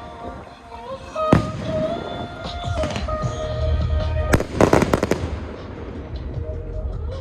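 Fireworks going off: a single sharp bang about a second in, then a rapid cluster of bangs and crackling a little past the middle, with music playing underneath.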